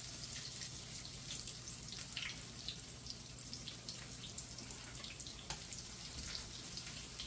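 Potato pancakes (draniki) frying in a pan of oil: a steady quiet sizzle with scattered small pops and crackles.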